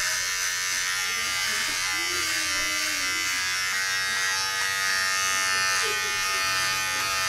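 Braun MGK3220 cordless trimmer with its narrow trimmer head buzzing steadily as it is run over the scalp, cutting short hair.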